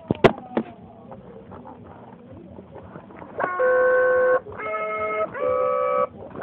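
Singamajigs singing toy sounding a run of held, steady notes, each about a second long and each at a different pitch, starting about three and a half seconds in. A sharp click comes about a quarter-second in.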